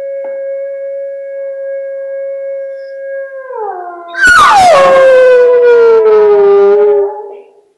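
A long, steady wolf howl from the wolf documentary, then, about four seconds in, a hound dog's loud howl close by. The dog's howl starts high, slides down, holds for about three seconds, and fades out near the end.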